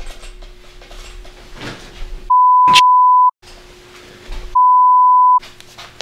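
Two loud electronic beep tones, each a single steady pitch of about 1 kHz lasting about a second, the first starting a little over two seconds in and the second about a second after it ends. A short sharp click sounds partway through the first beep, and faint room noise fills the gaps.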